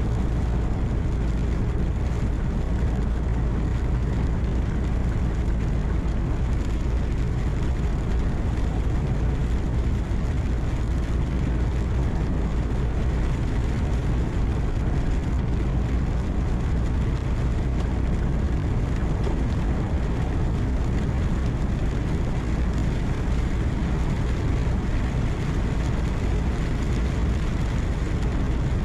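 Steady low drone inside a moving truck's cab: engine hum mixed with road noise, even throughout, with no distinct knocks or horns.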